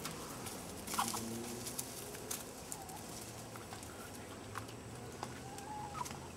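Faint backyard bird sounds: hens clucking softly and short chirping calls, with a few light clicks.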